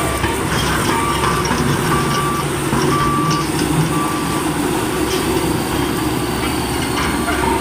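Reversing alarm beeping about once a second over a steady engine rumble.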